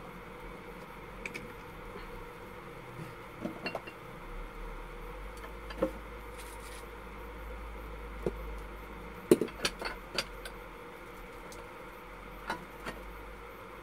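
Scattered light clinks and knocks of glass jars and kitchenware being handled, with a quick cluster of them about nine to ten seconds in, over a low steady hum.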